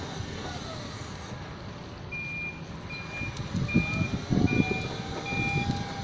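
Toyota 7FBR15 electric reach truck's warning alarm beeping at a steady pace, a short high beep roughly every 0.8 seconds, starting about two seconds in. Under it runs a low rumble of the truck travelling, with a few louder low bumps near the middle.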